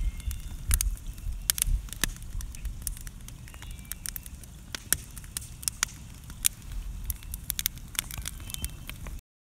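Wood fire burning in a stone fire pit, crackling with frequent irregular sharp pops over a low rumble.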